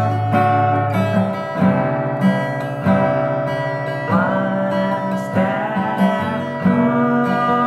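Acoustic guitar strumming chords in a steady rhythm, with a sharp strum attack every half second or so.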